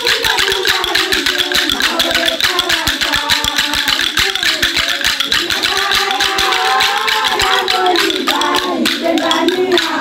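Voices singing over a fast, steady rattle-and-percussion beat. Near the end the beat thins out while the singing carries on.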